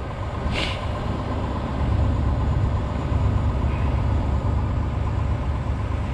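Diesel truck engine idling: a steady low rumble, with a brief hiss about half a second in.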